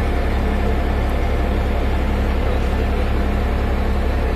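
BG825 motor grader's diesel engine running steadily, a continuous low rumble with a steady hum over it.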